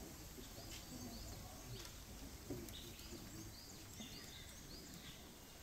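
Quiet outdoor ambience with a small bird chirping: short high notes repeated about three times a second, mostly in the second half, over low background noise.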